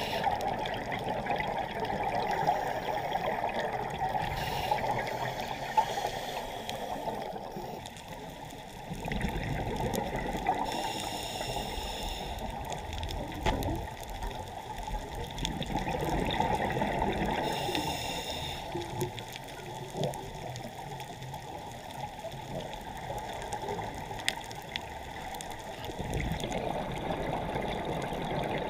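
Underwater sound heard through a camera housing: a steady rushing of water, with a scuba diver's breathing coming through as a short hiss and bubble burst about every six or seven seconds.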